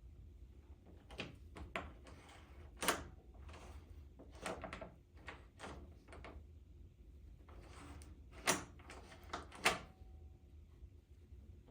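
Door hardware being handled: a series of irregular clicks and knocks from the knob and latch, about a dozen over ten seconds, three of them louder than the rest.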